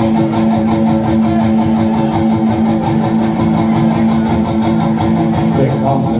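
Rock band playing live and loud: electric guitars hold a steady droning chord over the drums, with no singing.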